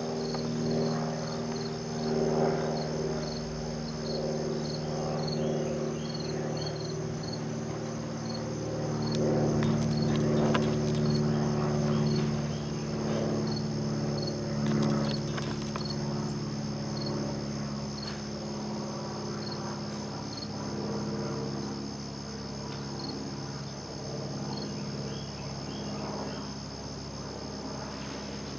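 Insects singing in a steady high trill, with a separate short chirp repeating about once a second, over a low steady hum.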